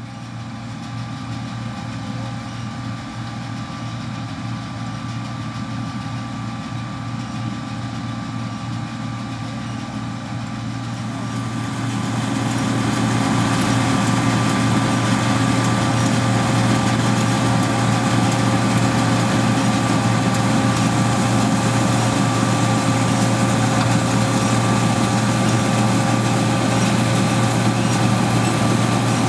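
John Deere C670 combine harvester running steadily with a constant engine hum and whine, growing louder about twelve seconds in.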